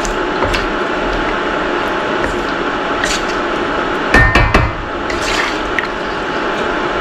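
Wooden spatula stirring curry goat in broth in a wok, the liquid sloshing, with a quick cluster of knocks of the spatula against the wok, with some ringing, a little past halfway.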